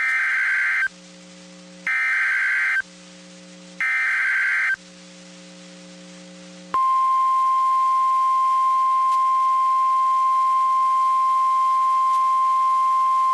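NOAA Weather Radio emergency alert signal: three short bursts of SAME digital header tones about a second apart, then a steady single-pitch warning alarm tone (1050 Hz) that starts about halfway through and holds. It announces a flash flood warning broadcast.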